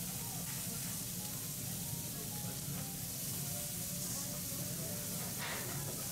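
Food sizzling on a hot teppanyaki griddle, a steady frying hiss, with one short, sharper sound about five and a half seconds in.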